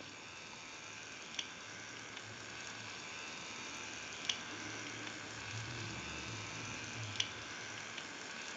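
Animated Mickey Mouse lamp's motorised gear pack running faintly, with a soft click about every three seconds and a low hum. The figure keeps moving without stopping because its on/off button control has failed.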